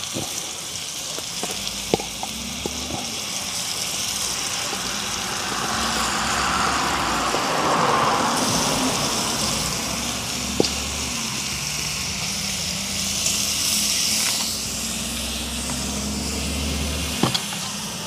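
Food frying in hot butter in a pot over an open fire, a steady sizzle with a low rumble underneath and a few light taps.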